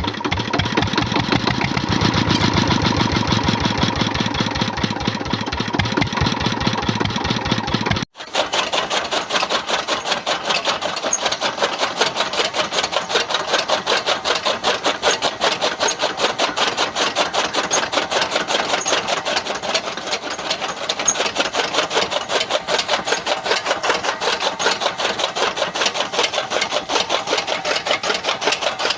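Small motor running a miniature DIY chaff cutter mechanism, with a steady, fast rattling pulse. It cuts off abruptly about eight seconds in and resumes at once, slightly brighter.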